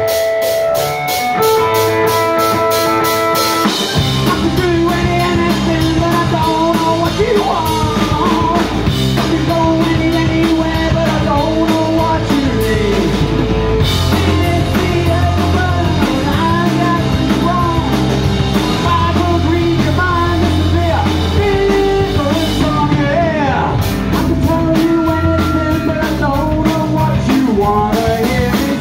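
Live rock band playing a song: electric guitars, bass guitar and drum kit, with a man singing. It opens with guitar chords over a steady beat, and the bass and full band come in about four seconds in.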